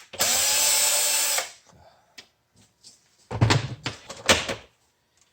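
Power drill-driver spinning up and running for about a second and a half, backing a screw out of a plastic appliance housing. About three seconds in come a few seconds of knocking and rattling as hard plastic parts are handled.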